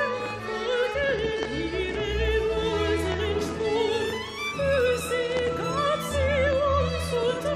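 A classical mezzo-soprano voice sings long notes with wide vibrato over orchestral accompaniment with a steady low bass.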